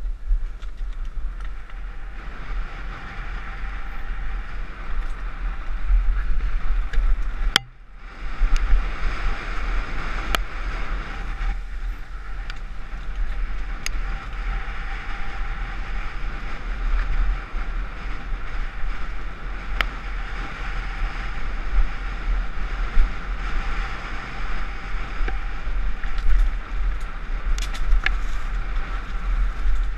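Mountain bike riding fast downhill on a rough trail: tyres rolling over dirt and stones, the bike rattling, with scattered sharp knocks, under heavy wind buffeting on the camera microphone. The noise drops briefly just under eight seconds in, then carries on.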